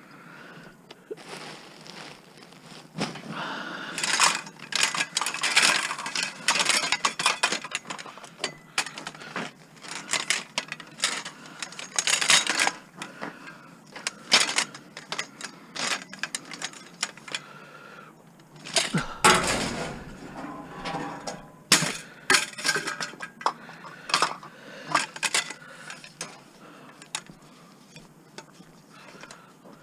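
Scrap metal being handled and loaded: many irregular metal clanks and rattles, with one heavier crash about two-thirds of the way through.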